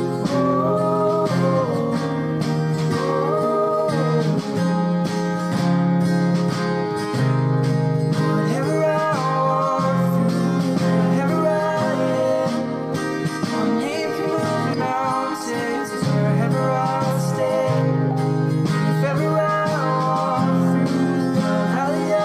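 Acoustic guitar strummed under a male and a female voice singing together in a slow worship ballad.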